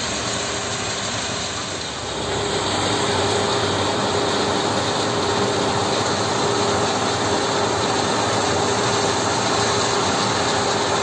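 Stone-quarry machinery running: a mobile stone crusher crushing rock together with a hydraulic excavator's diesel engine, making a steady, dense din with a steady hum in it that grows louder about two seconds in.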